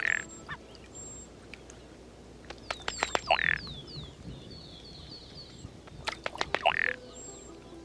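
Male ruddy duck's chest-patting (bubbling) courtship display, heard twice: a quick run of ticking taps of the bill against the chest, then a loud croaking call.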